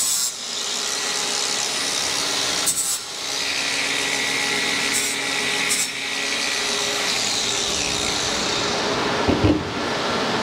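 Cordless angle grinder deburring the cut end of thin metal tubing: a steady grinding rasp with brief dips where the disc comes off the work, about 3 and 6 seconds in, and a couple of knocks near the end.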